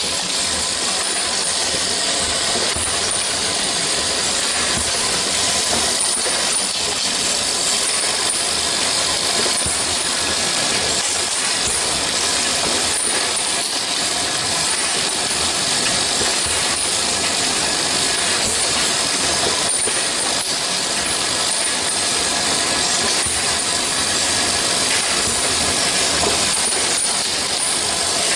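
Automatic syrup filling and capping machine line running: a steady mechanical whir with many light clicks and clinks throughout.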